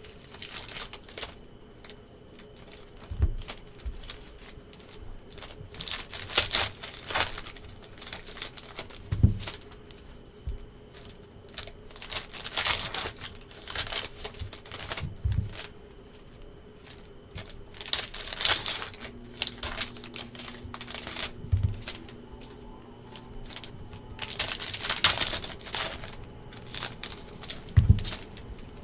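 Panini NBA Hoops card packs being opened by hand: wrappers crinkling and tearing and cards rustling in clusters every few seconds, with a soft thump on the table about every six seconds.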